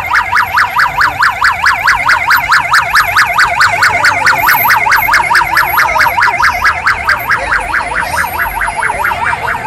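Electronic siren on a fast yelp: a loud, rapid rising-and-falling wail repeating about six or seven times a second, slightly fainter near the end.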